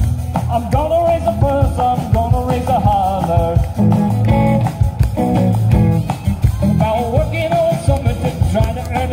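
A live band playing rock and roll on electric guitar, bass guitar and drum kit, with a melodic lead line over the rhythm.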